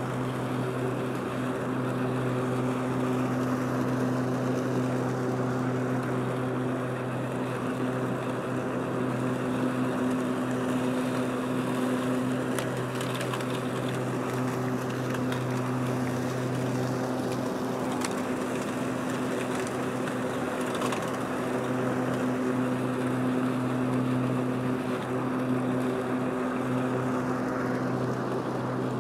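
Powersmart 80-volt cordless self-propelled lawn mower running with its twin blades spinning, mulching leaves: a steady electric-motor hum over the rush of the blades, with no change in speed.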